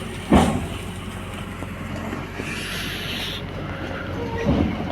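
Excavator's diesel engine running steadily, with a loud thump just after the start and another near the end.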